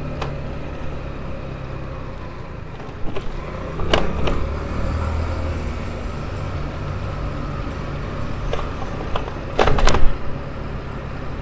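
Motorcycle engine running steadily while riding, heard from on the bike. Short sharp knocks come a few seconds in and again near the end, the last ones the loudest.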